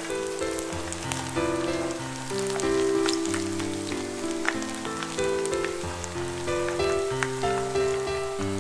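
Background music with a melody over a bass line, over hot oil sizzling and crackling steadily around cornflake-coated chicken tenders frying in a shallow pan.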